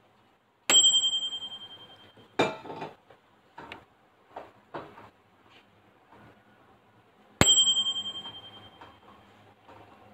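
Microwave oven's timer bell dings twice, about seven seconds apart, each strike ringing and dying away over a second or two. Between the dings come a clatter and a few light clicks and knocks.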